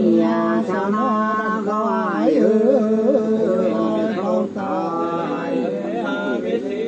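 Two voices singing hát sli, the unaccompanied two-part folk song of the Nùng people, in long held notes with quick ornamental turns.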